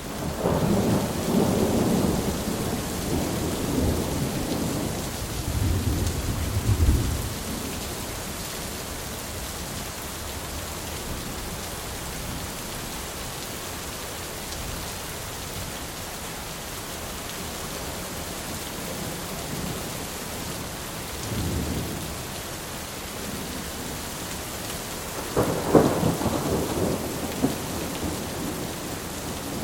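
Thunderstorm: steady rain hiss with rolling thunder. A long rumble fills the first seven seconds, a brief low rumble comes around twenty seconds in, and a sharper clap rolls on near the end.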